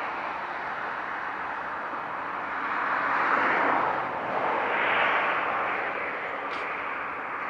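Steady hiss-like rushing around a stopped freight train whose car air brakes are still applied, swelling twice near the middle.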